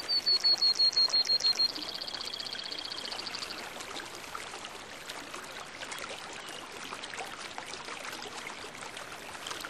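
Steady rush of running water, with a bird's rapid high trill, falling slightly, in the first two seconds, followed by a buzzier trill that fades out by about four seconds in.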